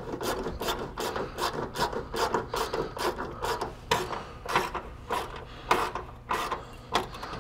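Hand socket ratchet driving in a hood hinge bolt, its pawl rasping in short back-and-forth strokes, about three a second.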